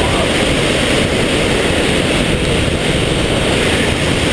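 Waterfall: a steady, loud rush of falling water, even and unbroken.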